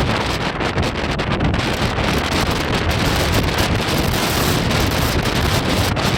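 Strong storm wind blowing across the microphone in a steady loud rush, over the noise of heavy surf.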